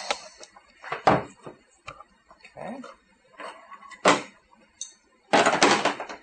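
A few sharp metallic clicks and clunks from a squeeze puller being worked on welded pins in an aluminum body panel to pull out a dent. The loudest knock comes about four seconds in, and a cluster of knocks comes near the end.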